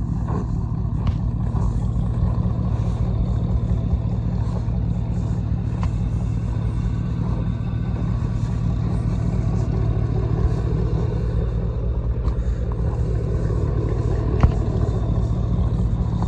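Pickup truck engine idling: a steady low rumble.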